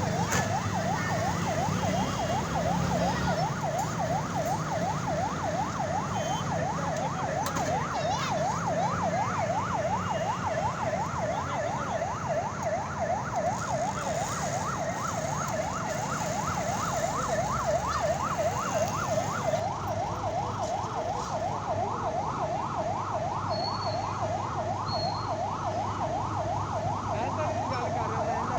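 Electronic warbling warning siren, a tone sweeping quickly up and down about three times a second and going on steadily, over a low engine rumble.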